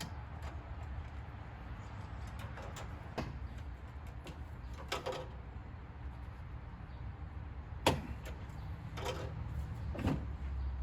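Scattered metal knocks, clicks and a short rattle of hand tools and loose parts during disassembly of a rusty car's front end, with the loudest knocks about eight and ten seconds in, over a steady low hum.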